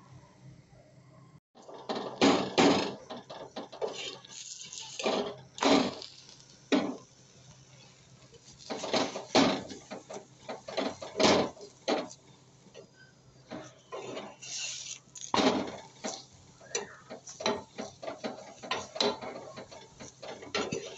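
Steel spoon scraping and clattering against a cast-iron tawa as oil is spread over a paratha and it is pressed down, in irregular strokes of varying loudness.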